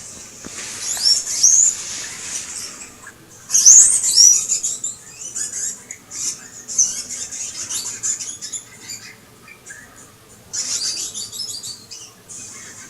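Two small pet rodents squeaking and chirping in short, high-pitched, falling calls as they chase each other around the cage. The calls come in several bursts, the loudest about four seconds in.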